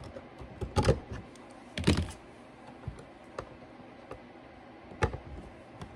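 Scattered clicks and knocks of needle-nose pliers working a bare copper ground wire around the ground screw in an electrical box, the loudest knocks coming about one and two seconds in and another near the end.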